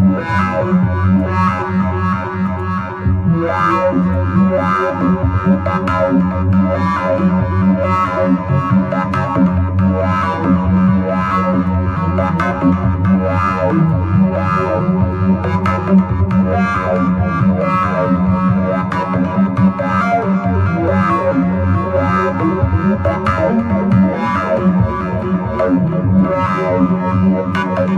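Sylenth1 software synthesizer playing a distorted arpeggiated psytrance line in 1/8 steps, with foldback distortion and a stereo delay, repeating in a steady pattern.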